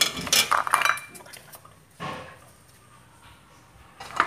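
An orange plastic spoon and hard-boiled eggs clacking against each other in a bowl as the eggs are stirred and rolled in dye. There is a quick run of clicks in the first second, a softer knock about two seconds in, and one more click near the end.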